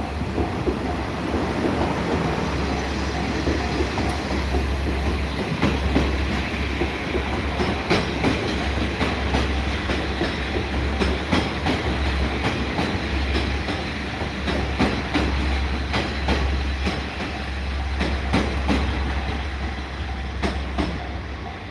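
A train passing over a level crossing: a steady rumble with many wheel clacks over the rail joints. A repeating warning-bell tone from the crossing signal is heard at the start and again near the end.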